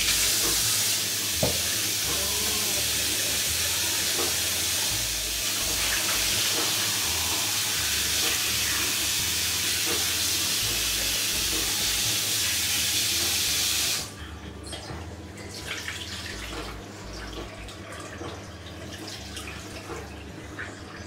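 Hot water tap running hard into a stainless steel kitchen sink, splashing over a bowl of boiled beef. About fourteen seconds in it is shut off suddenly, leaving quieter trickling and small clinks as the rinse water is tipped out of the bowl.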